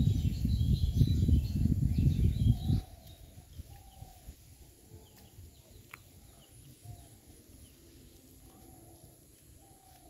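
Birds chirping and calling outdoors, under a loud low rumble on the microphone that cuts off suddenly about three seconds in. After that only faint, scattered bird calls remain.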